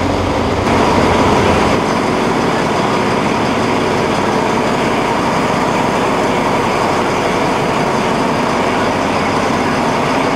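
State Railway of Thailand diesel locomotive running while standing at a station platform: a steady engine noise.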